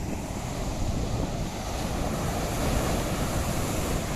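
Sea surf washing on a beach, with wind buffeting the microphone in a steady low rumble.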